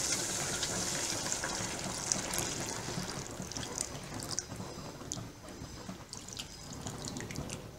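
Coconut milk poured in a thin stream into a hot pan of roasted broken wheat and melted jaggery while a wooden spatula stirs it: a steady liquid hiss that fades gradually, with light scraping ticks in the later part.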